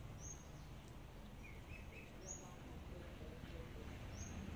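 Faint outdoor background noise with a bird's short high chirp repeating about every two seconds, and a few softer chirps near the middle.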